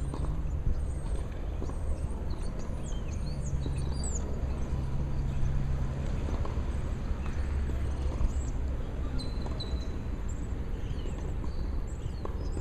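Wind buffeting the microphone outdoors, a steady low rumble that rises and falls, with small birds chirping in the background.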